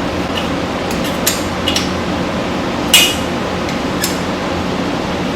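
Wrench and metal hardware clinking while the exhaust header bolts are fitted and tightened at the cylinder head: about five short sharp clinks, the loudest about three seconds in, over a steady background hum.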